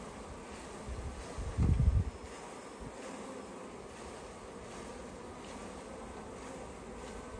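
Honey bees buzzing steadily as a package of bees is shaken and poured out into a hive, stirred up and flying. A brief low rumble about a second and a half in is the loudest moment.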